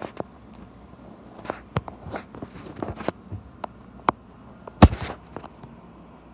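Irregular light clicks and taps, with one sharp, louder knock about five seconds in.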